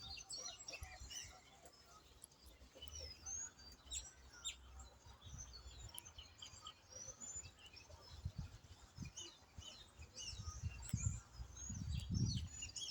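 Several birds chirping and twittering in short, high calls that overlap. Low rumbling thumps come in over the last few seconds.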